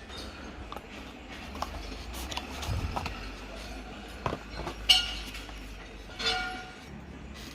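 A trading card starter deck's cardboard box and plastic packaging being opened by hand: scattered light clicks and taps, with a brief louder crinkle about five seconds in and another about six seconds in.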